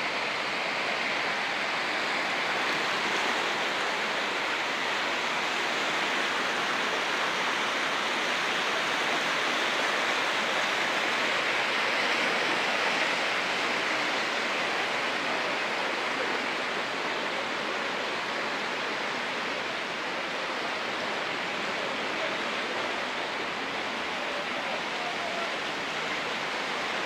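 Muddy floodwater rushing through a street: a steady, even rushing noise.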